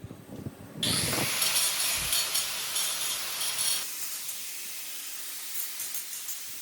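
A loud, crackly hiss starts suddenly about a second in, then drops to a softer steady hiss for the rest of the time.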